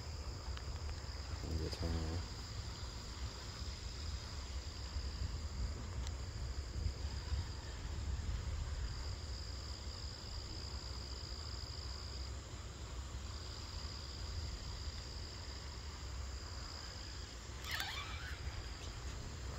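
Insects, crickets by the sound of it, trilling steadily in one high pitch, with short breaks, over a low steady rumble. Near the end a brief call falls in pitch.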